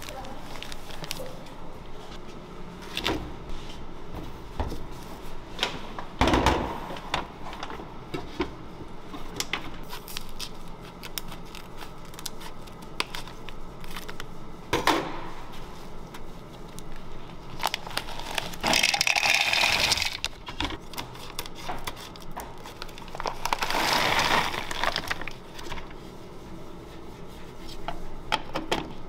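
Food-prep handling sounds: plastic packaging crinkling and scattered clicks and knocks, with two louder rustling stretches of a second or two each, about two thirds of the way in and again near the end.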